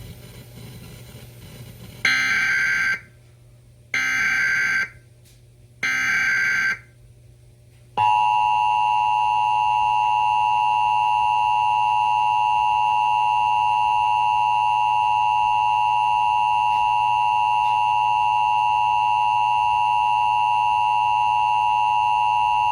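Emergency Alert System test tones: three short bursts of the screeching digital header data, each about a second long and two seconds apart, followed by the long, steady two-tone attention signal, which holds for about 15 seconds and then cuts off.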